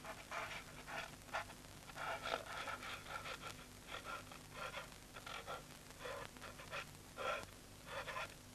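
A person breathing hard in short, breathy gasps, about two or three a second at an uneven pace, over a faint steady hum.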